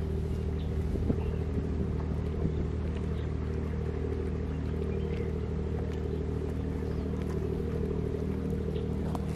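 A steady low engine hum, a motor running at constant speed without change. It cuts off abruptly at the end.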